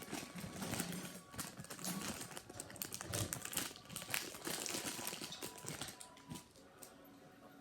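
Plastic packaging crinkling and rustling as it is handled, in a run of crackles that dies down about six seconds in.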